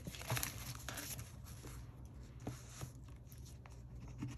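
Paper bills and plastic binder pockets rustling as they are handled, followed by a few soft taps. Near the end a coin starts scratching at a scratch-off card.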